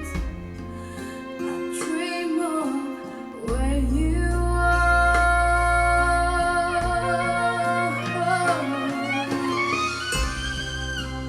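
A ballad played back through B&W 804 D4 floorstanding speakers, in a wordless passage: a gliding lead melody over sustained accompaniment, with a deep bass line coming in about three and a half seconds in.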